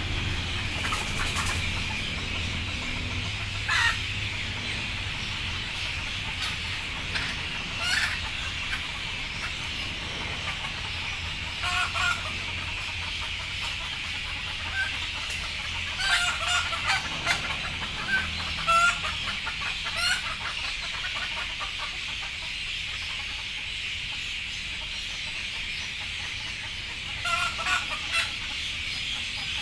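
Chickens clucking, with short calls every few seconds over a steady high-pitched hiss in the background.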